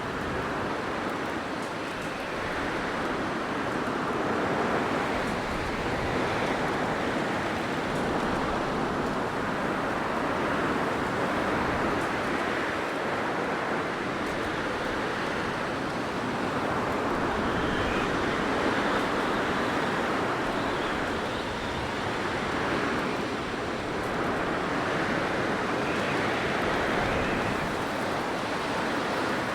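Blizzard wind blowing steadily, swelling and easing in slow gusts every few seconds.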